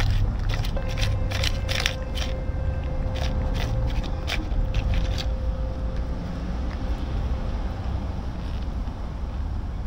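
Tabby cat eating canned wet food from a foil tray close by: a quick run of wet chewing and lapping clicks that thins out about halfway through, over a steady low rumble.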